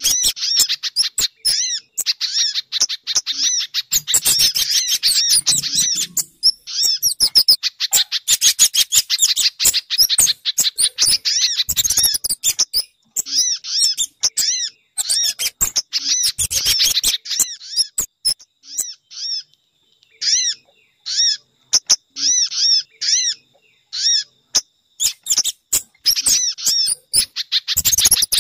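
Recorded bird-lure calls of sogon, spiderhunter and kemade: fast runs of short, sharp, high chirps, broken by brief gaps that come more often in the second half.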